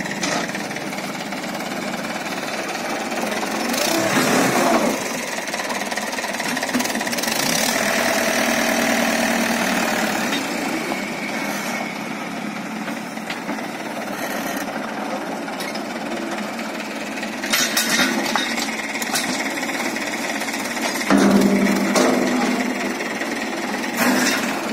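Small diesel tractor engine running steadily with a rattling, knocking clatter as it works a front-loader bucket. A few sharp knocks stand out along the way.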